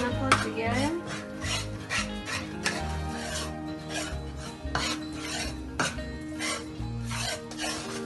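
Metal spoon scraping and stirring thick besan roasting in ghee in a metal kadai, a rasping scrape about two or three times a second.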